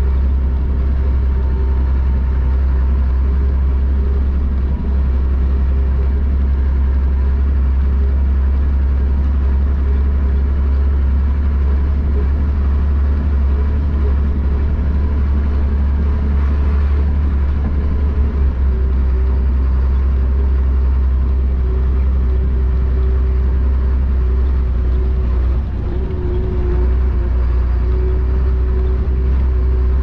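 Chenglong concrete mixer truck's diesel engine running steadily under way, heard from inside the cab as a loud, even low drone.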